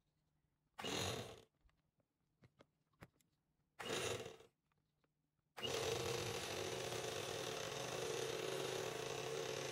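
Electric hand mixer's twin beaters whirring in cake batter: two short pulses of under a second each, then running steadily from about halfway.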